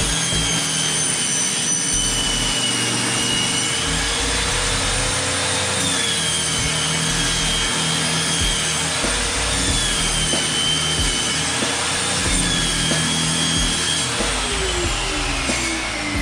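Table saw cutting plywood: the motor runs steadily and the blade whines, its pitch dipping and recovering several times as the wood is fed. About fourteen seconds in the saw is switched off, and its pitch falls as it spins down.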